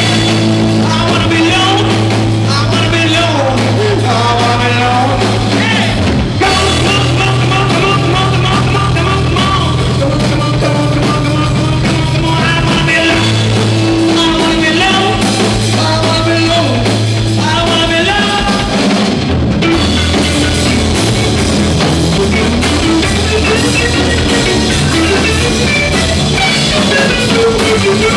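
Live rock band playing loud: electric guitar, bass guitar and drum kit, with singing. The bass holds long notes that change every few seconds.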